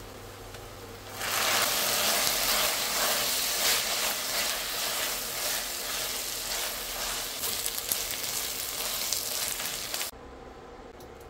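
Sliced onions frying in hot oil in an enamelled cast-iron pot, the sizzle jumping up loudly about a second in as a spoonful of paste goes into the oil, with the scrape and clatter of a spatula stirring through it. The loud sizzle cuts off suddenly near the end.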